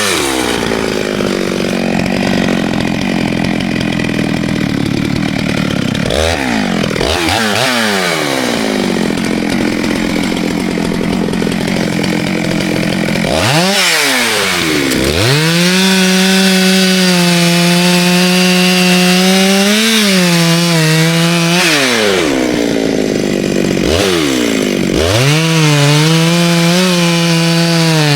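Two-stroke chainsaw cutting wood, its engine pulled down to a lower pitch under load for the first half. It then runs at high revs, with the pitch dropping sharply and climbing back several times as the throttle is eased off and opened again.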